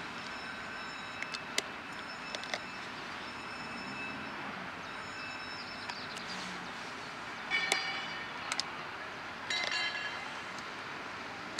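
Railway train noise: a steady rumble and hiss with scattered sharp clicks, and two brief high squeals in the second half.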